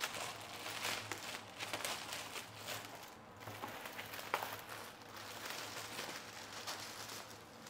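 Thin clear plastic packaging bag crinkling and rustling in irregular crackles as it is pulled open and slid off a new fabric sling bag.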